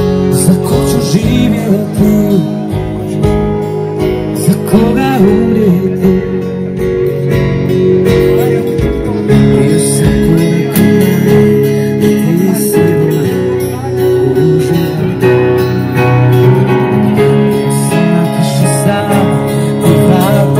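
Live acoustic duo playing: a Nord stage piano and an acoustic guitar, with a male singer. A low regular beat under the music drops away about halfway through.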